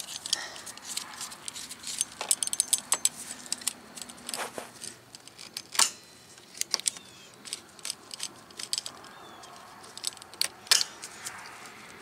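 Pliers and metal and plastic fittings clicking and clinking while a car's intercooler is freed from its mounts and hose clamps. The clicks are scattered and irregular, with a few louder snaps about halfway through and near the end.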